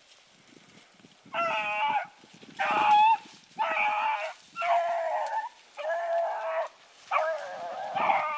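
Young rabbit hounds baying: a series of about six long, drawn-out bawls, roughly one a second, starting about a second in, as they work a rabbit's scent line.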